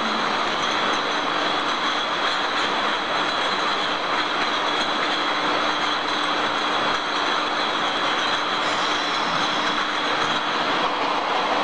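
Glass bottles jostling on a running metal conveyor line: a steady, dense rattle of glass and machinery with a constant low hum and a high whine over it.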